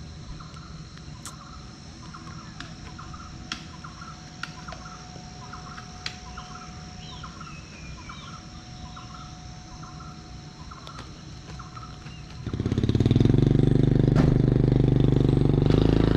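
Insects and birds chirping steadily in the background, a short chirp repeating about twice a second. About twelve seconds in, a motor vehicle's engine comes in suddenly and loudly close by and keeps running.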